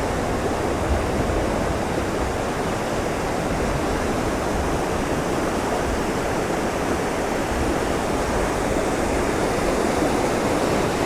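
Steady rush of fast-flowing flood water in a swollen river.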